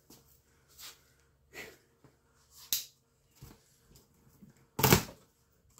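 A handful of short scuffs and knocks, about five spaced out, the loudest about five seconds in, from a cardboard box being handled and shifted.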